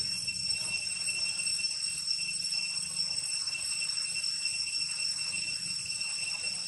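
Steady high-pitched insect drone, one unbroken tone with higher overtones, over a low rumble.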